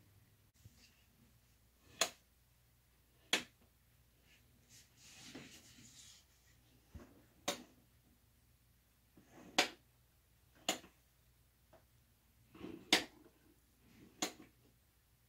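Sharp clicks and knocks, about eight of them a second or two apart, as a quartz radiant tower heater is tipped and set back down to test its tip-over safety switch.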